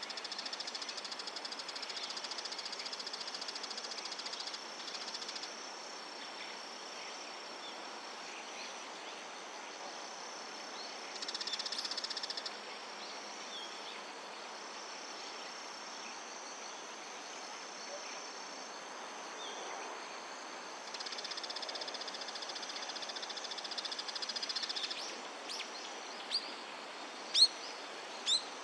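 Insects trilling in a high, steady buzz that comes and goes in spells. Near the end, three short sharp rising calls, the middle one loudest, which fit a bull-headed shrike calling.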